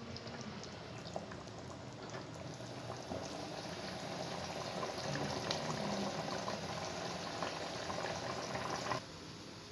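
Biryani rice and chicken in water bubbling at a rolling boil in an open pot, a steady crackle of popping bubbles. The bubbling cuts off about nine seconds in.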